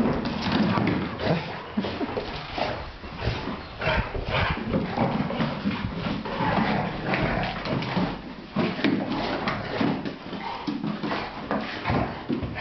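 Several young dogs play-fighting: dog vocal sounds over many short, irregular clicks and scuffles of claws and paws on a wooden floor.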